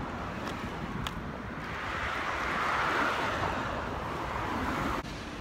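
Street traffic: a car passes close by, its tyre and engine noise swelling to a peak about three seconds in and then fading, over a steady rumble of traffic.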